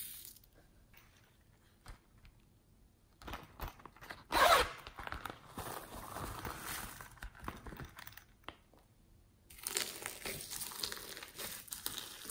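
Crinkling and crackling of a clear plastic zip pouch being handled and emptied of soft pieces into a tray of slime add-ins, loudest about four and a half seconds in. After a short lull, fingers press into foam beads and sequins with a crackly rustle.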